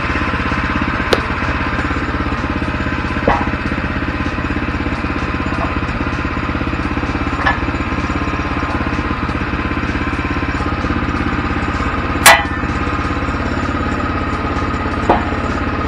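The 7 hp single-cylinder gas engine of a Woodland Mills HM122 band sawmill idling steadily while no cut is being made. Over it come a few sharp wooden knocks as a squared timber is shoved about on the steel bed, the loudest about twelve seconds in.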